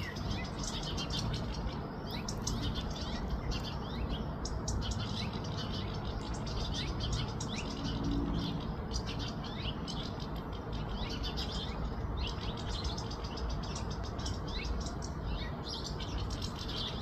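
Small songbirds chirping, many short high chirps in quick succession throughout, over a steady low background noise.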